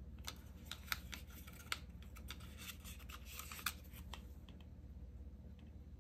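Faint, scattered clicks and scratches from a small cardboard perfume sample box being handled in the fingers, about a dozen light ticks.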